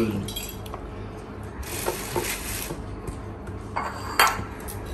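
A red plastic bowl of pounded onion being tipped and scraped onto raw chicken in a dish for marinating: a soft scraping rustle about two seconds in, then a few light knocks and clicks of the bowl and dish near the end.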